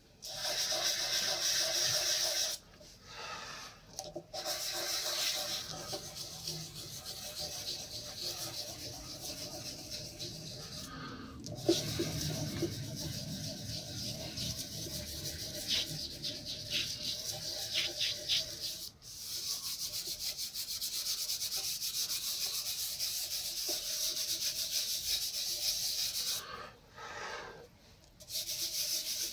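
Soft pastel scraping and rubbing across paper in stretches of strokes, a dry scratchy hiss broken by a few short pauses.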